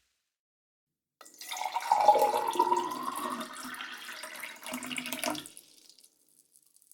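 Water poured into a glass, a splashy gurgling stream that starts about a second in and stops near the end, its pitch rising slightly as the glass fills.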